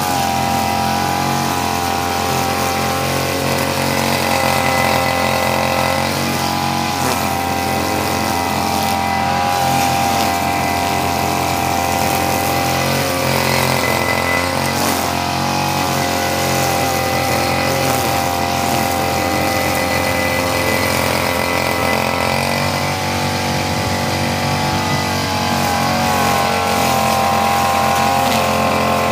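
Backpack brush cutter's small petrol engine running at cutting speed while its head trims grass, its pitch dipping and picking up again a few times as the throttle and load change.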